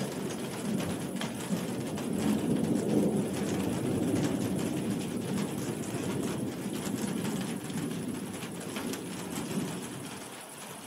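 Low rolling thunder that swells about two seconds in and slowly fades, over the steady hiss of heavy rain with scattered drop ticks.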